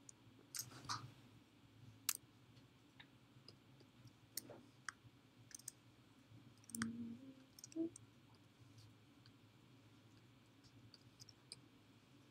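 Sparse, faint clicks and taps from computer input devices against a low steady hum, with a brief low sound about seven seconds in.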